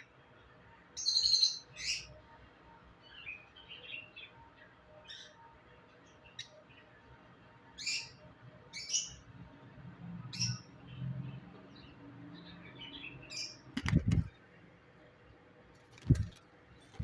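Cockatiel chicks giving short, high chirps and squeaky calls, a dozen or so scattered through, the loudest cluster about a second in. Two loud thumps near the end.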